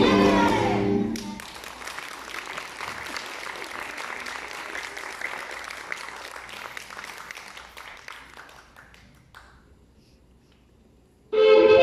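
The music ends about a second in and audience applause follows, fading out over several seconds into a brief hush. Music starts again abruptly near the end.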